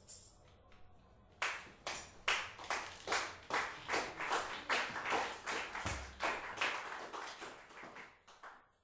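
A small audience clapping. The claps come in as separate strokes about a second and a half in, build up, then thin out and stop near the end.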